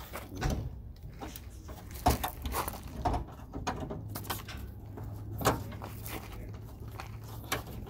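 A Dodge pickup's chrome grille being pulled and wiggled by hand, knocking and rattling against its mounts in several separate clunks.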